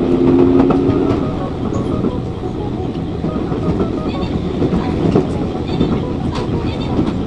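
Electric train running at speed, heard from on board: a steady rumble of wheels on rail with scattered clicks and clatter over the track.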